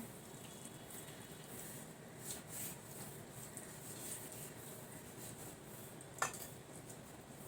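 Faint eating and dish sounds: soft scraping and handling of food on plates, with one sharp click about six seconds in.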